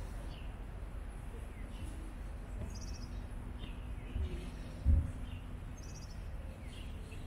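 Small birds chirping in short, scattered calls over a steady low rumble of street ambience. A low thump comes about four seconds in, and a louder one just before five seconds.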